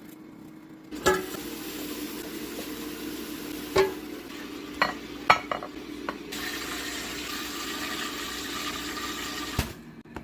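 Food sizzling as a burger fries, with a few sharp clicks and knocks along the way; the sizzle gets louder about six seconds in.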